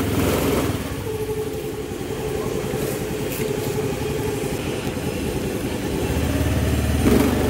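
Scooter engine running steadily, just after being started.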